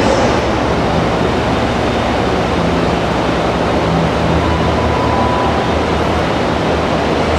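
Two Direct Rail Services Class 68 diesel locomotives running light and approaching at low speed, their engines running with a steady drone.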